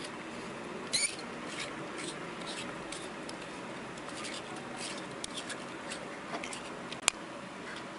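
Faint rubbing and small clicks of fingers working a glass element out of a lens barrel, over a steady hiss, with a sharper click about a second in and another near seven seconds.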